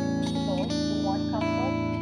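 Guitar-led music playing at a steady level, with held chords that change every second or so.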